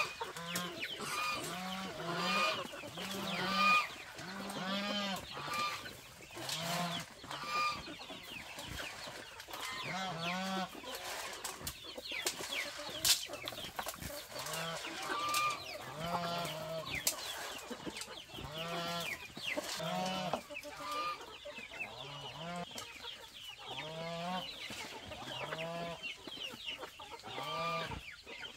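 A flock of chickens clucking around feed, with a short call every second or so and scattered sharp ticks.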